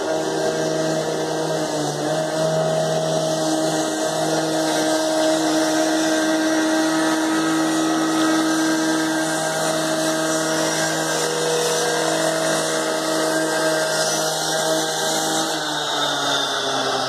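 An engine running steadily at a constant speed, holding one pitch throughout.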